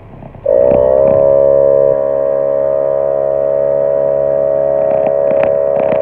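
Small 12-volt portable air compressor (tire inflator) starting up about half a second in and then running with a steady, loud droning hum, a little quieter after about two seconds, as it pumps air into the freshly patched tire through its coiled hose.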